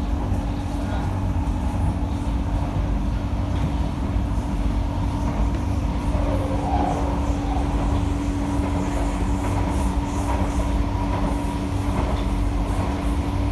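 Kawasaki & CSR Sifang C151A metro train running at a steady pace, heard from inside the passenger car: steady low rumble of wheels on rail with a steady hum.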